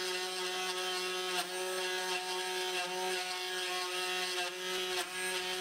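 Router spindle on a homemade CNC machine running at a steady speed: a constant whine with a few brief dips.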